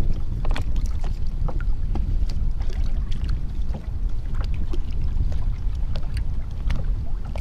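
Wind on the microphone of a kayak-mounted camera, a steady low rumble, with scattered small irregular clicks and taps throughout.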